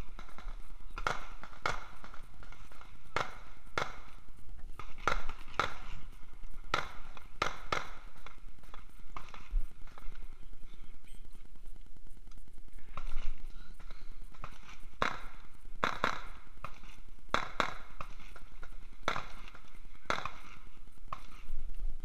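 A series of irregular sharp knocks or cracks, often two or three in quick succession, spread through the whole stretch.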